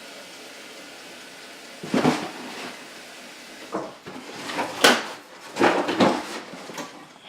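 Several short, sharp knocks and clatters spread over a few seconds, the sound of household objects or doors being handled.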